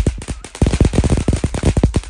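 Ground firework fountain on a lawn, spraying sparks and crackling with a fast string of sharp pops, about nine a second.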